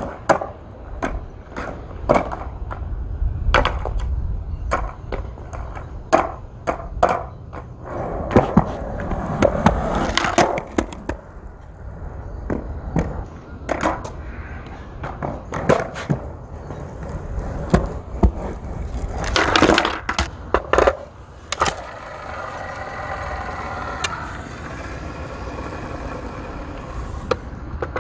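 Skateboard rolling over pavement: a steady low wheel rumble broken by many sharp clacks and knocks. For the last several seconds it rolls more smoothly with a faint hum.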